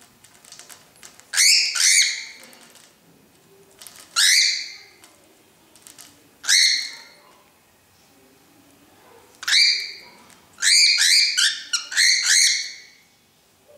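Cockatiel giving short, harsh squawks: two close together, then single ones every two to three seconds, then a rapid run of six or seven near the end. These are the angry calls of a cockatiel in a threat display.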